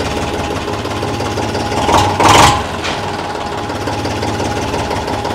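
Eicher 485 tractor's air-cooled diesel engine idling steadily, freshly started. About two seconds in there is a brief, louder burst of noise.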